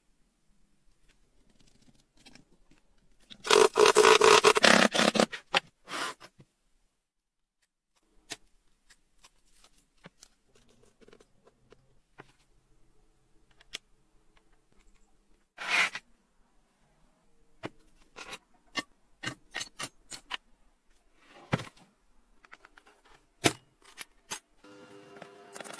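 Hands handling small paper and metal parts on a wooden tabletop: a loud scraping rub lasting about two seconds near the start, then scattered light clicks, taps and brief rubs, with one sharp click near the end.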